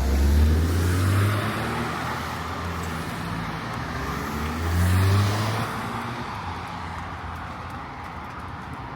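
Road traffic: cars passing, engine rumble and tyre noise, with one pass loudest at the start and another about five seconds in, then dying away.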